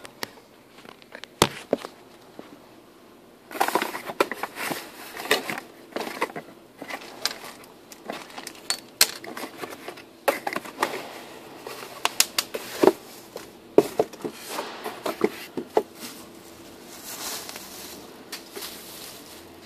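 Hands rummaging in a cardboard box and handling stiff plastic packaging: crinkling and rustling broken by many sharp clicks and knocks, starting a few seconds in after a lone knock.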